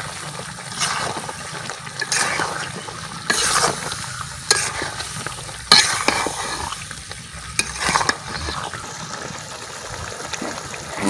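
Steel spatula scraping and stirring a thick beef-and-potato curry in a metal karahi, irregular scrapes about once a second with a few sharp clicks of metal on the pan, over the sizzle of the frying sauce.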